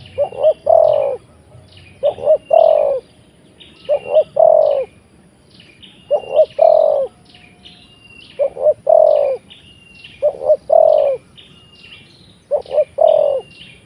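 Spotted dove cooing its three-note phrase, two short notes and then a longer one, seven times at about two-second intervals; this is the trained decoy dove calling. Thin high chirps from a smaller bird sound between the coos.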